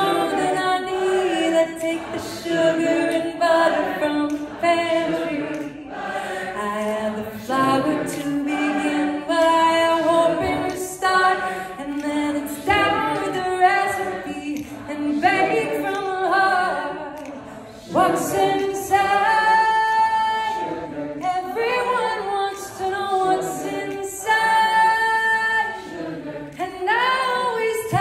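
A woman singing unaccompanied into a microphone, a melodic line of held notes, with audience voices singing along.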